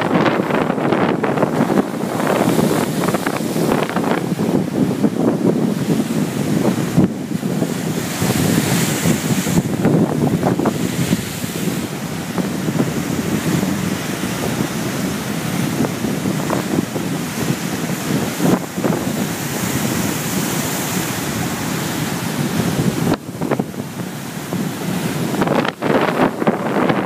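Rough sea surging and waves breaking against rocks and a stone sea wall, a continuous loud rushing wash. Gusty wind buffets the microphone.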